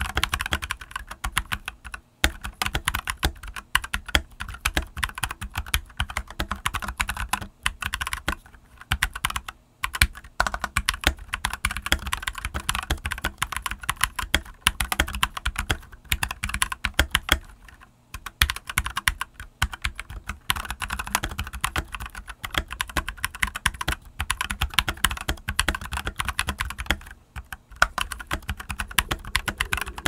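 Continuous typing on a stock NextTime X68 mechanical keyboard with JWK T1 tactile switches and dye-sub PBT Cherry-profile keycaps: a dense run of key clacks, with a few brief pauses.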